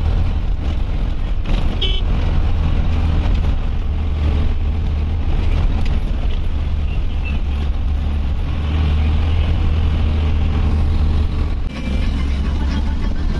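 A motor vehicle on the road: a steady, loud low engine and road rumble, with a brief high tone about two seconds in.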